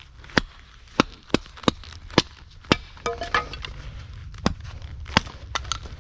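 Hatchet splitting dry ash deadwood into kindling on a stump chopping block: about ten sharp knocks of steel into wood, roughly two a second and irregular, with a brief crackle of wood splitting apart about three seconds in.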